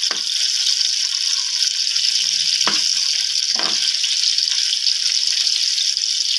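Hot oil sizzling steadily in a frying pan as chopped chillies fry for a tadka (tempering), with a spatula scraping the pan three times.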